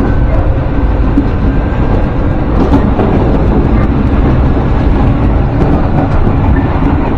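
Electric commuter train on the Tobu Kameido Line running along the track: a steady, loud rumble of wheels on rails and car body, with faint clicks from the rails.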